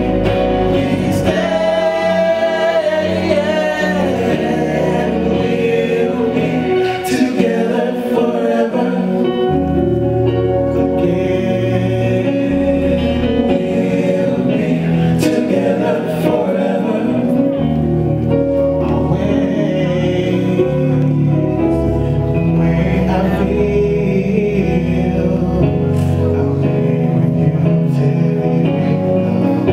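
Male vocal group singing gospel in close harmony into microphones, with voices sustaining and sliding between notes.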